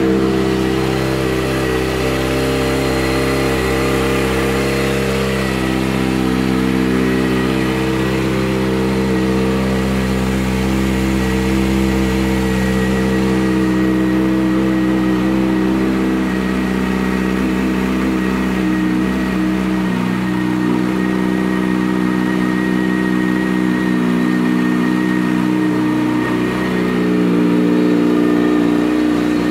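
A 2011 Kawasaki Ninja ZX-6R's 599 cc inline-four engine idling steadily through an aftermarket M4 exhaust.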